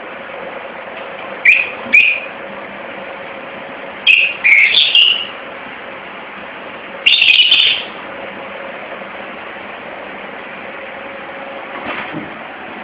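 Rosy-faced lovebird calling in short, sharp, high chirps: two quick chirps, a burst of several calls about four seconds in, and a longer, harsher call a little later. A steady background hiss runs underneath.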